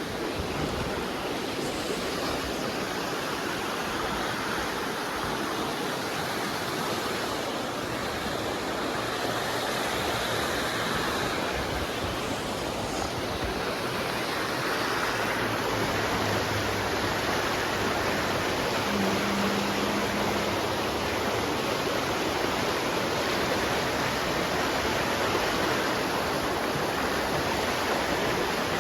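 Steady rush of flowing river water, a continuous even noise with no breaks.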